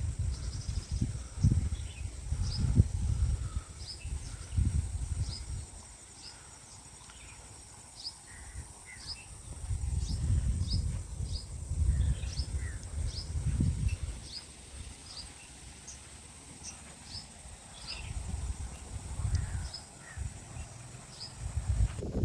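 Small birds chirping: many short, high, downward chirps repeated throughout, over gusts of wind buffeting the microphone that come and go in low rumbles.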